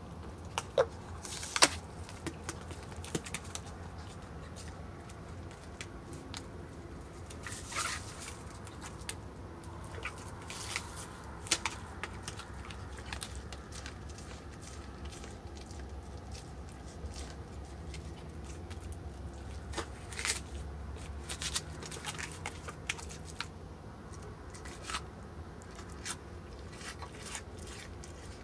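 Mule deer buck chewing and crunching feed close to the microphone: irregular crunches and clicks, over a steady low hum.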